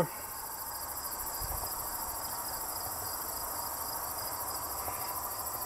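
A steady, high-pitched, pulsing insect chorus, chirping on without a break.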